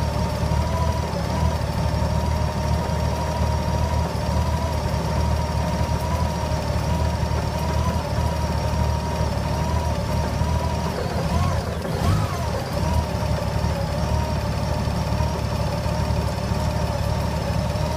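Honda GL1800 Gold Wing's flat-six engine idling roughly with a steady low running note. The pitch briefly wavers about two-thirds of the way through.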